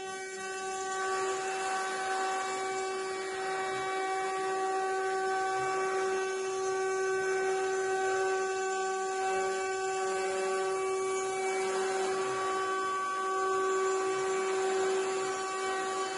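The two 800 W spindle motors of a mini CNC wood router running at speed: a steady, high-pitched whine over an even rush of noise.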